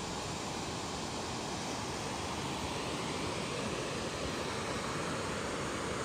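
Waterfalls rushing: a steady, even noise of falling water with no breaks.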